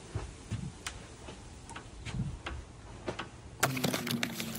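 A few light, irregular clicks and taps, then, from about three and a half seconds in, a cardboard box being opened by hand: quick clicks and rustling of the flaps over a faint low hum.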